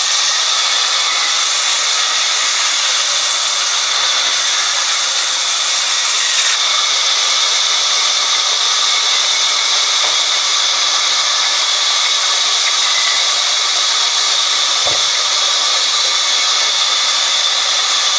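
Vertical band sawmill blade ripping lengthwise through a log: a steady, loud hiss of sawing with a thin high whine held throughout. A single short knock comes late on.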